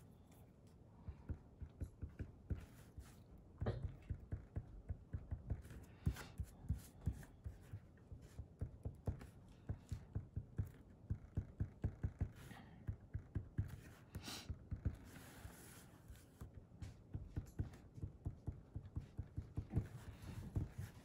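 Fine-tip felt pen dotting onto a paper cutout on a craft mat: a long run of light taps, about two to three a second, with an occasional short scratch of the pen tip.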